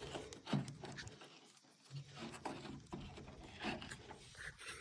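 Faint scattered knocks and rustles of handling noise, the hand-held phone camera being moved about and fumbled.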